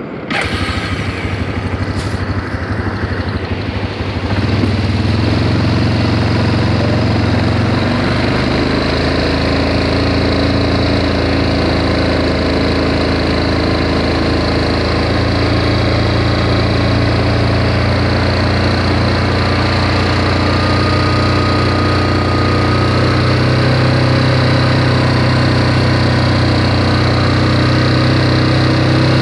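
An engine running steadily, starting up and getting louder about four to five seconds in, then holding an even pitch.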